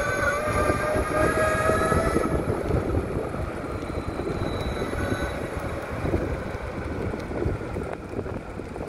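Electric motors of an SYL-08 V3 electric mountainboard whining, the pitch slowly rising as the board speeds up, then dying away about two seconds in. A steady low rumbling noise, including wind on the microphone, carries on after.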